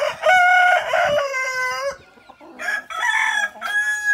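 Rooster crowing twice, each crow a long, high call of about two seconds.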